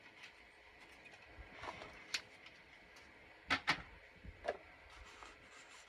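Paper and card being handled: a few faint rustles and short, sharp taps, the loudest a quick pair of taps a little past halfway.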